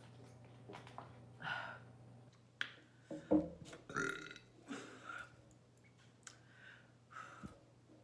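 A woman burping several times after drinking water, the loudest and deepest burp about three seconds in.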